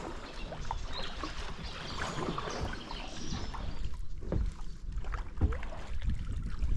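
Kayak paddling: paddle blades dipping into the river and water splashing and dripping around the boat, with a low rumble underneath that grows louder near the end.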